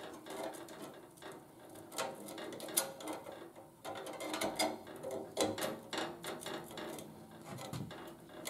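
Irregular light metallic clicks and rattles as a new bandsaw blade is worked by hand around the saw's wheels and into its roller guide bearings.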